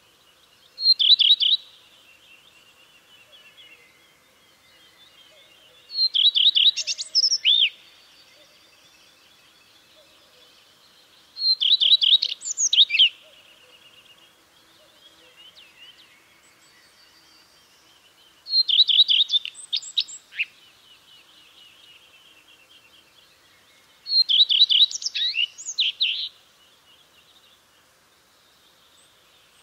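Common redstart singing: five short song phrases, each a second or two long, about every five to six seconds, with quiet gaps between.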